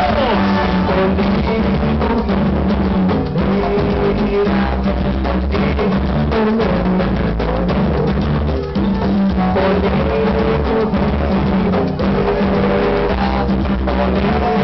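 Live band music played loud, with a steady drum-kit beat under guitar and keyboard.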